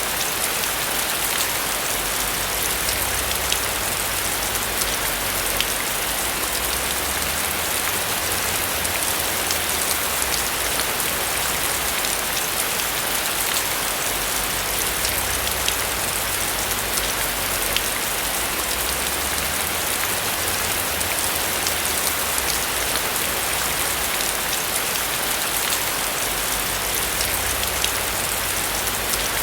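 Steady rain falling on a roof, a dense even hiss with the patter of individual drops, over a low rumble.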